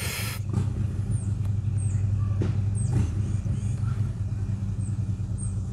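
Harley-Davidson V-twin motorcycle engine running steadily at a constant low pitch. There is a short burst of noise right at the start.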